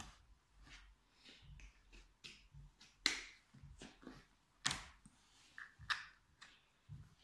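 A child's fabric school backpack being handled and fastened: scattered faint rustling with a few sharp clicks, the loudest about three and about four and a half seconds in.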